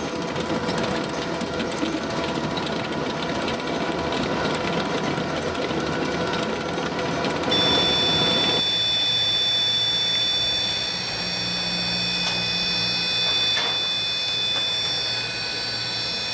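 Mushroom compost filling machine running, a steady dense mechanical rattle with a hum. About halfway through it cuts abruptly to a different steady machine sound, with high-pitched whining tones over a low hum.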